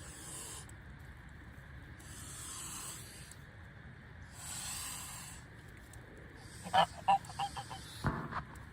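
Geese hissing in two breathy stretches, then a quick run of short honks near the end, with a low thump among them.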